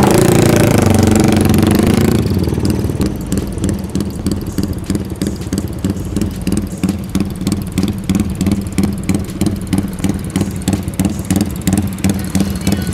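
Sport motorcycle engine running while riding slowly. It is louder for the first two seconds, then settles into a steady low note that pulses regularly.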